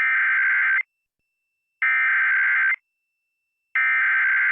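Emergency Alert System SAME header: three bursts of buzzy digital data tones, each just under a second long, about a second apart. This coded burst announces the start of an emergency alert.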